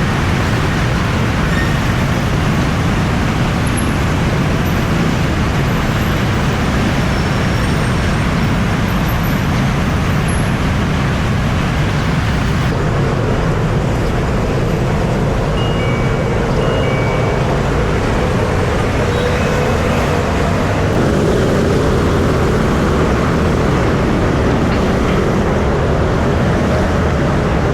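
Heavy road traffic running steadily and loudly, a continuous rush of engine and tyre noise with no single vehicle standing out.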